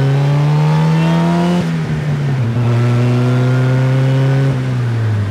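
A DF Goblin kit car's Chevy Cobalt four-cylinder engine revving under acceleration. Its pitch climbs, falls back about a second and a half in, climbs again, and falls back near the end.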